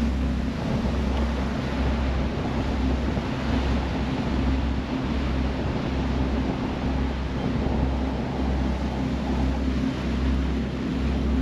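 A motor cruiser's engines run steadily under way with a low drone that pulses slowly and evenly. Water rushes past the hull and wind buffets the microphone.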